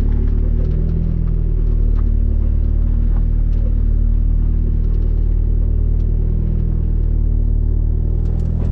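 Car engine running at a steady speed through a newly fitted ISR Performance single-tip blast-pipe exhaust, giving a loud, steady low drone.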